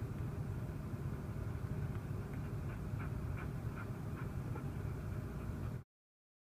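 Steady low, engine-like background rumble with a few faint soft ticks in the middle; it cuts off abruptly to silence near the end.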